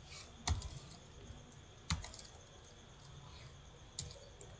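Computer keyboard keys being typed: a few scattered, irregular keystroke clicks, the sharpest about half a second and two seconds in.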